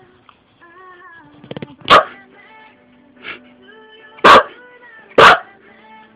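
A Shiba Inu barking three times in short, sharp barks, about two seconds in and twice more near the end, with a softer yip in between, over background music.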